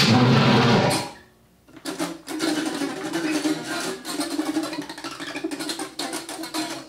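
Experimental noise music: a dense, loud passage cuts off about a second in, and after a brief gap comes a scratchy texture of scrapes and clicks over a steady low drone.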